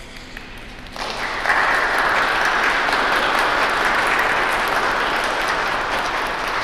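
A small crowd of people applauding, starting about a second in and going on steadily.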